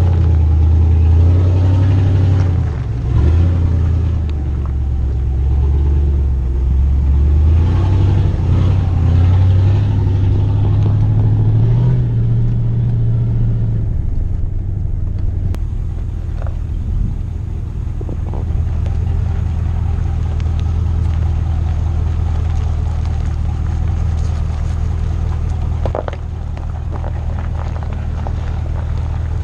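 Pickup truck engine running on a rough off-road trail, its pitch rising and falling with throttle for the first dozen seconds, then settling into a steady low rumble. A few sharp knocks come from the truck jolting over the trail.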